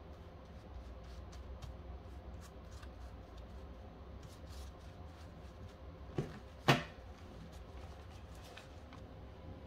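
Stack of US one-dollar bills being handled on a table: faint paper rustling and light flicks as the notes are fanned out and gathered. Two sharp knocks a little past halfway are the loudest sounds.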